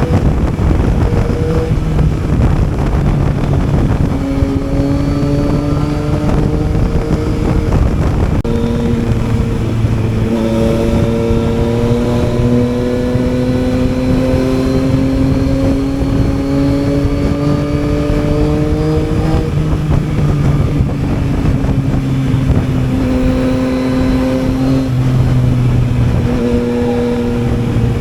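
Yamaha Tracer 900's three-cylinder engine under way on the road, its pitch climbing slowly in a long pull from about a third of the way in and dropping back about two-thirds through, over a constant rush of wind and road noise.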